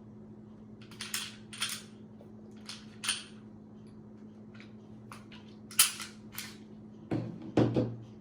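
9mm pistol being field-stripped: a scattered series of sharp metallic clicks and clacks as the slide is released and worked off the frame, with a couple of heavier knocks near the end. A faint steady hum runs underneath.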